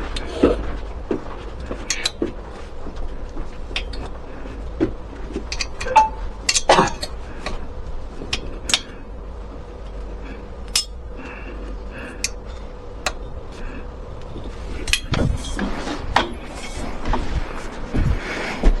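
Irregular light clicks and clinks of small hard objects being handled, with a few sharper knocks, over a steady low hum.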